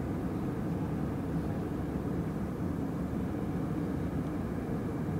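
Steady low drone of a jet airliner in cruise, the engine and airflow noise heard inside the passenger cabin.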